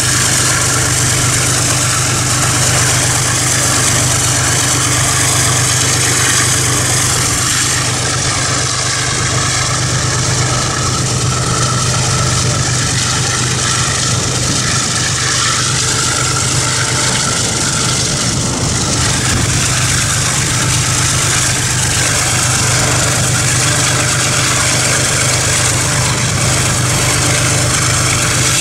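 Steady engine drone with road and wind noise from a car driving alongside a diesel freight train, holding an even level throughout.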